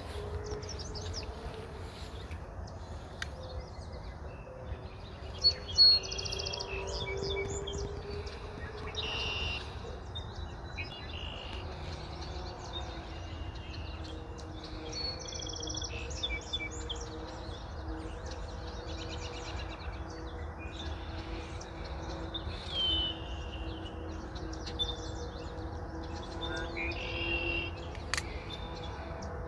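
Songbirds chirping and calling, many short high calls and whistles coming and going, over a steady low hum.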